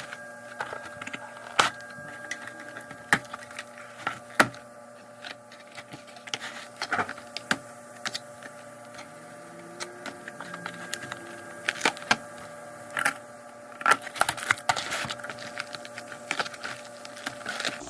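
Plastic Nerf gun parts and their packaging being handled and pulled from the box: irregular sharp clicks, knocks and crackles, over a steady hum.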